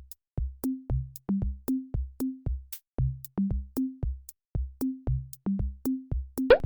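Electronic background music: a drum-machine beat of short, pitched low thumps, about three a second, with light ticks above, and a quick upward sweep near the end.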